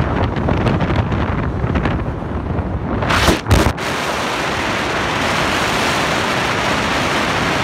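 Wind buffeting the microphone on a boat moving at sea, gusty and uneven. About three and a half seconds in it gives way to a steady, even rush of wind and water.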